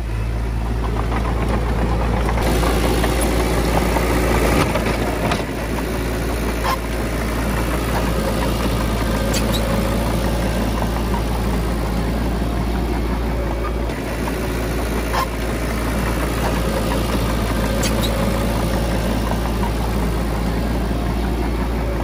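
Komatsu D20P bulldozer's diesel engine running steadily, with a few sharp knocks or clanks at irregular moments.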